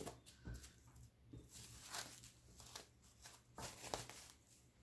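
Near silence: room tone with a few faint taps and rustles of handling.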